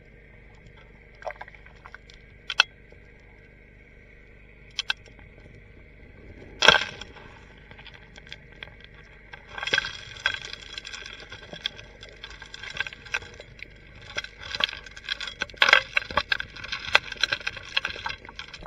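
Rocks and gravel clicking and knocking as they are worked loose and sucked into a gold suction dredge's nozzle and hose, heard underwater over the steady hum of the running dredge. A few separate knocks at first, then a dense run of clatter from about halfway in.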